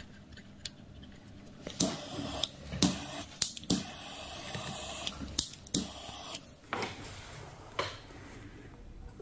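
A small hand tool and hands working the wiring of a subwoofer amplifier plate: an irregular string of about ten sharp clicks and snaps over a soft rustle of cables being handled.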